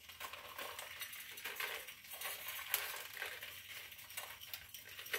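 Coarse ice cream rock salt sprinkled by hand onto ice cubes in a container: a quiet, steady run of small gritty clicks as the crystals land and the ice shifts.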